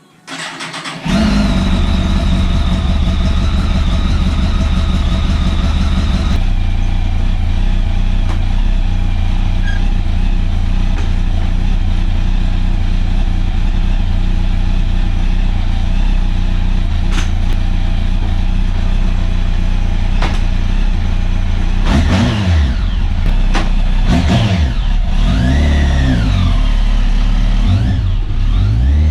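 Ford Falcon XC's 351 Cleveland V8 cranks briefly and starts about a second in, running at a fast idle. It drops to a lower, steady idle about six seconds in, then is revved several times near the end.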